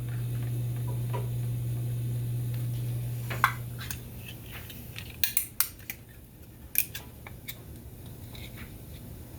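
Canned mushrooms being drained: metal clinks and clatters of the opened can and its lid, with sharp clinks about three and a half seconds in and a cluster a couple of seconds later. A steady low hum runs through the first four seconds, then stops.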